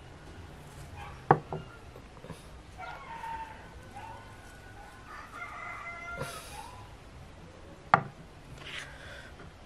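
A rooster crowing in the background: one long crow in the middle. Two sharp knocks, one about a second in and one near the end, are the loudest sounds.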